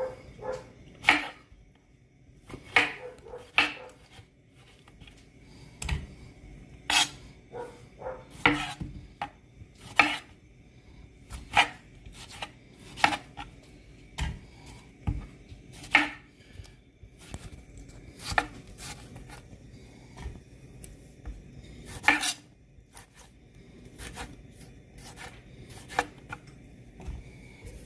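Knife cutting Roma tomatoes on a cutting board: sharp knocks of the blade hitting the board, irregularly spaced every second or two.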